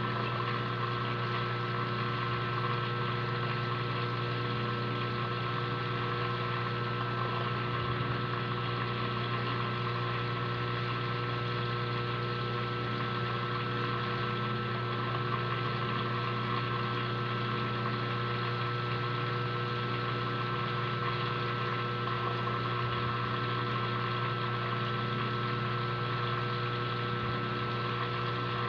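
Aquarium pump humming steadily, a constant low electric hum with a few fixed higher tones over it.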